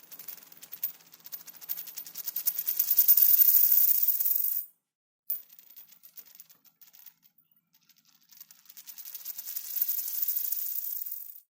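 A coin spinning and wobbling down on a hard surface, twice: each time a sparse clicking quickens into a fast, louder rattle as the coin settles, then stops abruptly.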